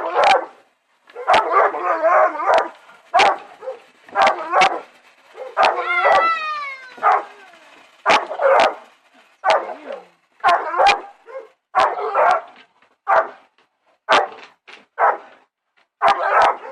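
Dog barking repeatedly, about once a second, with a drawn-out falling yelp about six seconds in.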